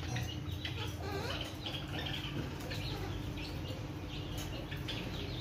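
A flock of small caged fancy finches chirping busily, many short high calls overlapping, with some wing fluttering as a hand reaches into the cage.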